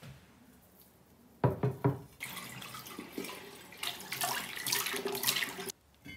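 A couple of sharp knocks, then a kitchen tap running into a glass vase at the sink for about three and a half seconds before it is shut off abruptly.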